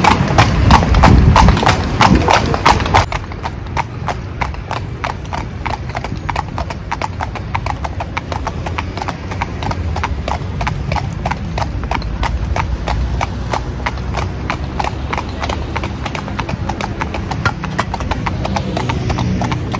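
Two carriage horses' hooves clip-clopping steadily on a paved street as they pull a horse-drawn calèche, louder for the first three seconds.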